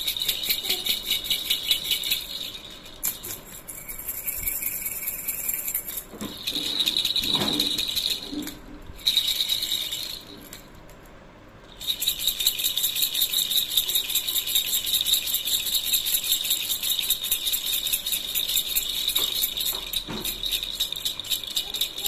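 Plastic baby rattle shaken by hand, the loose balls inside its hollow perforated plastic balls giving a fast, continuous, high rattling. It breaks off briefly a few seconds in and again for a couple of seconds just before halfway, then runs on steadily.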